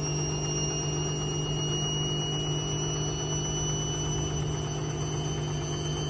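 Hoover Vision HD front-loading washing machine running mid-cycle: a steady motor hum with a thin high-pitched whine that slowly rises in pitch.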